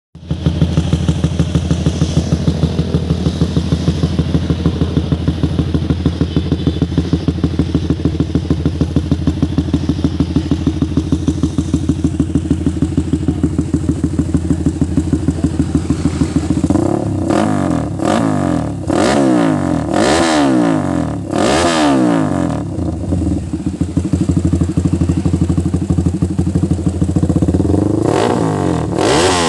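Raider 160 motorcycle engine idling steadily, then revved in a run of quick throttle blips past the halfway point, and revved again near the end.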